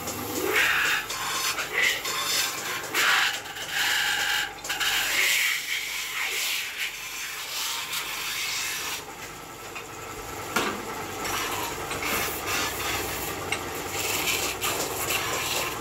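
Iron sheet turning on a metal-spinning lathe while a long hand-held spinning bar is pressed against it to form it over the mould: an uneven scraping and rubbing of tool on metal, with brief high squeals in the first half.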